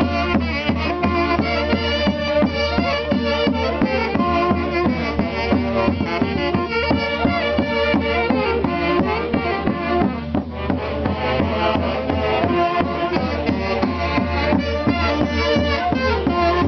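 Band music from an orquesta: several melody instruments playing over a steady beat, with a brief dip in level about ten seconds in.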